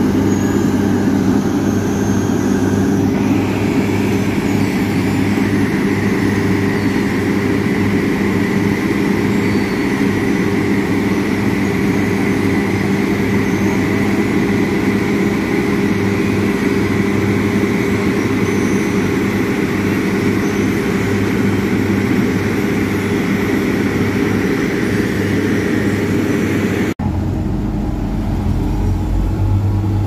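Diesel engine of a Vögele asphalt paver running steadily at close range, with a steady high whine above its hum from a few seconds in. Near the end it cuts to the deeper, lower engine rumble of Case tandem road rollers.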